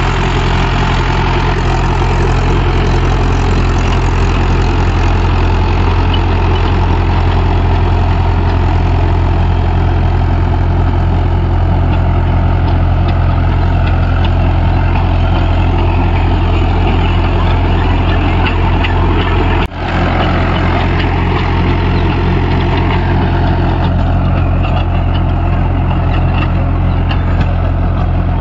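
Mahindra 415 DI tractor's diesel engine running steadily under load at about 1500 RPM in low first gear, driving a rotavator. There is a brief sharp break in the sound about twenty seconds in.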